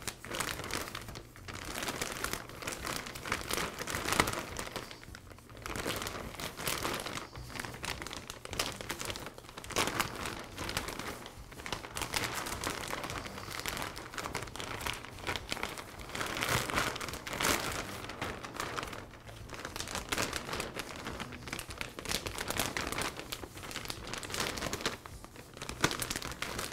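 Thick clear plastic dust-collection bag crinkling and rustling as it is handled and wrapped over its ring retainer, on and off with brief pauses.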